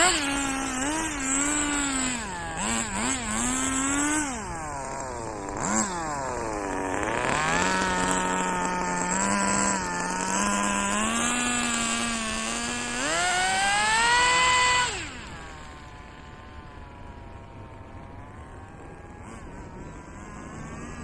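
Small nitro engine of an RC drift car running with its silencer removed, revving up and down with repeated throttle blips and lifts. About fifteen seconds in it drops to a quieter, steady run.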